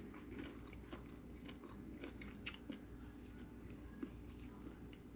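A person chewing a mouthful of fried American shad fillet, quiet and close, with irregular small crunches and clicks.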